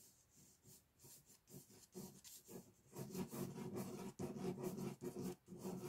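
Ballpoint pen scratching on drawing paper in repeated sketching strokes, faint at first and denser and louder from about three seconds in.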